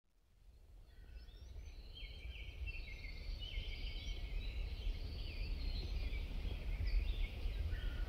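Several birds chirping and singing, a busy overlapping chorus of short calls and quick glides, over a steady low rumble. It fades in from silence over the first couple of seconds.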